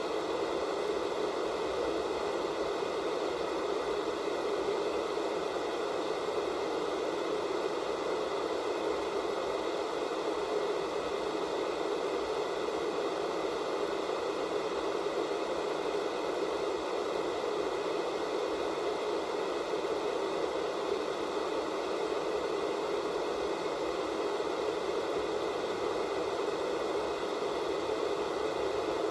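Analog television static: the steady hiss of a TV tuned to no signal, even and unchanging, fullest in the lower middle range, with a faint steady whine above it.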